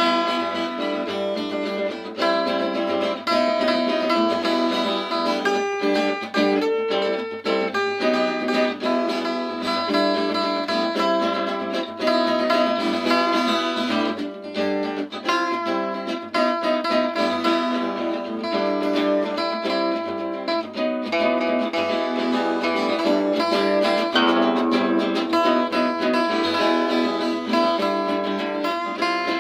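Acoustic guitar strumming chords steadily in an instrumental passage, with no singing.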